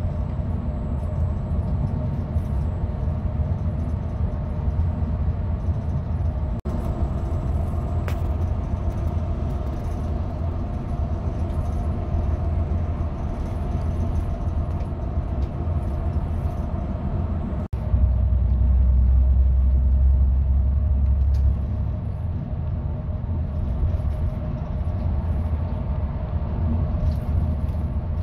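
Steady low rumble of a bus's engine and tyres on the highway, heard from inside the passenger cabin. It grows louder for a few seconds about two-thirds of the way through.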